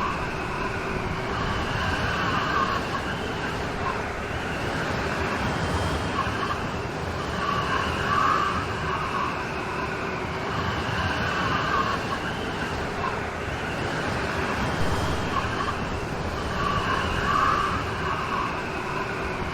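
Steady rain falling. Over it, a faint wavering higher tone swells and fades every several seconds.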